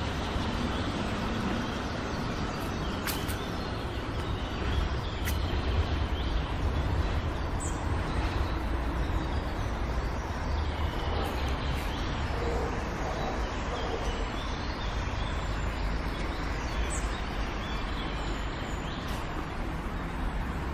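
Outdoor city ambience: a steady low rumble of distant traffic, with a few faint, high bird chirps now and then.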